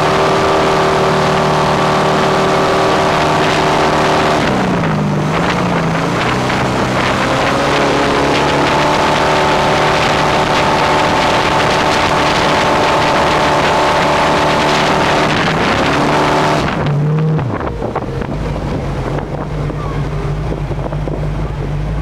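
Speedboat's exposed V8 inboard engine running hard, with wind across the microphone. The engine note dips briefly a few seconds in and picks back up, then about five seconds before the end the throttle comes off and it settles to a lower rumble.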